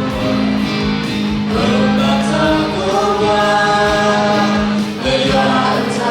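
A group of voices singing a Christian gospel song together in long held notes, with a regular low beat underneath.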